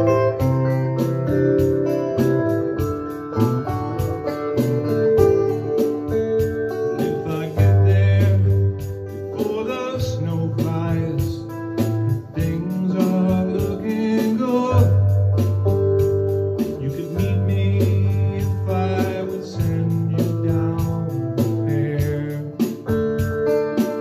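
A folk song played on electric guitar, with sustained organ-like keyboard chords underneath and a man singing at times.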